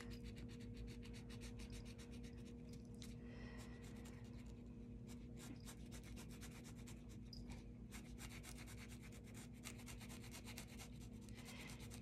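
Felt-tip marker rubbing on paper in rapid, faint back-and-forth strokes as a stem is filled in solid black.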